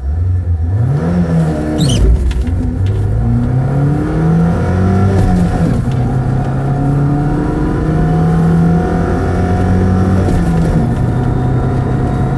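Lada Niva's 1.7-litre four-cylinder petrol engine accelerating hard through the gears, the revs climbing and then dropping at each of three gear changes.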